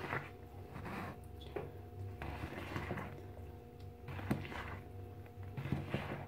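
Cake batter being stirred by hand in a mixing bowl: soft, irregular scrapes with a few light clicks of the utensil against the bowl, over a faint steady background tone.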